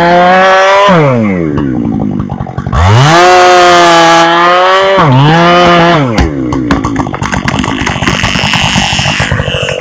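Husqvarna 592 XP two-stroke chainsaw at full revs in the felling cut of a large fir, easing off and opening up again a few times, then dropping back to idle about six seconds in. As the tree begins to tip, irregular cracking snaps follow over the idling saw.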